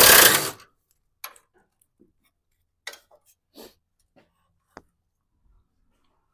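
A power tool spins out a bolt and stops about half a second in. Then come about five light, scattered clicks and clinks of metal parts being handled.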